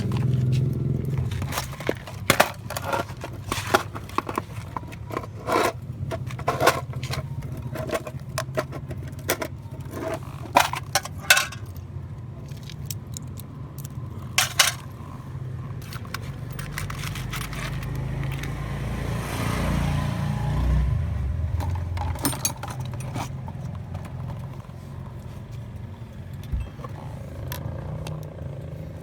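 Keys and small metal parts of a Honda City's ignition lock clicking and clinking in quick, irregular taps as the lock is worked on, over a steady low hum. A passing vehicle swells up and fades a little past the middle; the taps thin out after that.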